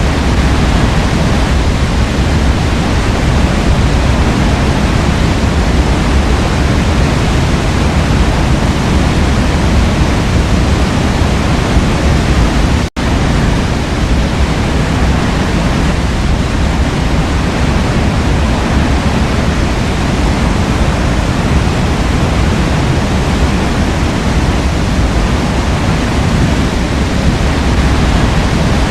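Waterfall: a steady, loud rush of falling water, heavy in the low end, broken once about halfway through by a split-second dropout.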